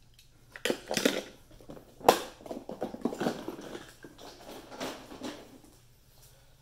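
Die-cast toy cars and a plastic compartment case being handled and moved: a run of rattling, clacking and scraping, with a sharp knock about two seconds in.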